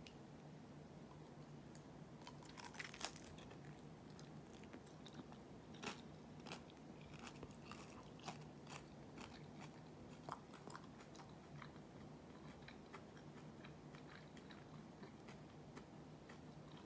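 Close-up crunching and chewing of crispy pan-fried gyoza with a lacy fried crust. The loudest crunches come about three seconds in and again near six seconds, followed by softer, scattered chewing crackles.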